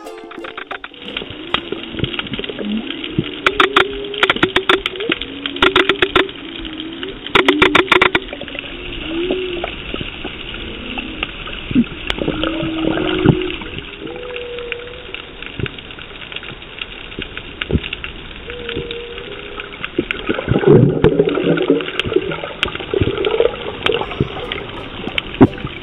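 Underwater water noise picked up by a submerged camera: a muffled rushing and gurgling, with scattered wavering low tones, a few rapid clicking patches early on and a louder stretch about twenty seconds in.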